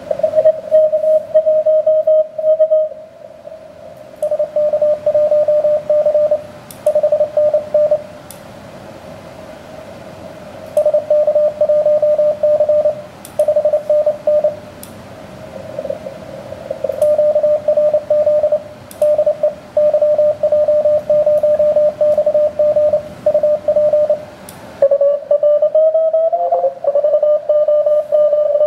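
Morse code (CW) from an amateur HF transceiver on the 17-metre band: a single steady tone keyed on and off in fast dots and dashes over a hiss of band static. Near the end a tone slides up in pitch as the receive dial is tuned, and fainter tones of other stations come in above it.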